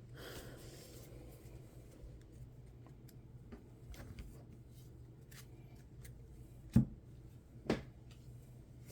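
Trading cards being handled, with soft sliding and rustling and faint ticks, and two sharp knocks near the end, the first louder. A low steady hum runs underneath.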